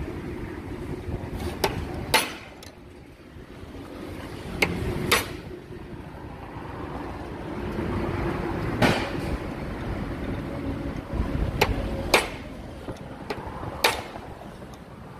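Sharp metal knocks and clanks of hammer or tool blows during repair of a Hyundai Porter's transmission, about eight unevenly spaced strikes over a steady low rumble.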